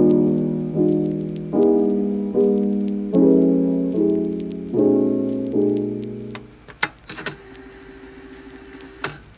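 Soft background piano music: repeated chords struck about every 0.8 seconds, which stop about six seconds in. A few faint clicks follow, with one more just before the end.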